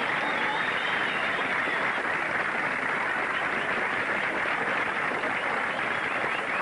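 Studio audience applauding steadily, with a few faint voices calling out in the first couple of seconds.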